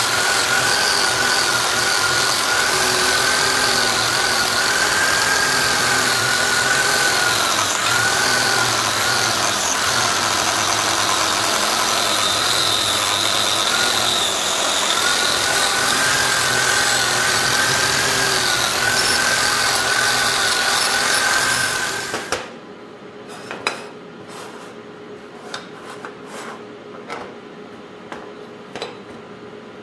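Small angle grinder fitted with a wire wheel, running against the broken edge of an aluminium bracket. Its motor whine wavers in pitch as it is pressed into the metal. It cuts off about two-thirds of the way through, and a few light knocks follow as the metal pieces are handled on a steel bench.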